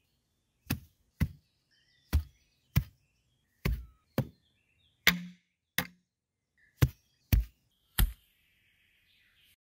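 Hand hoe (luckjärn) blade chopping down into grass and soil again and again, about eleven sharp strikes at an uneven pace of one or two a second: slugs being chopped.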